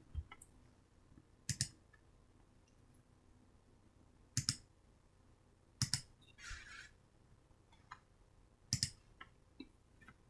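Computer mouse button clicking four times, a few seconds apart, each click a quick press and release.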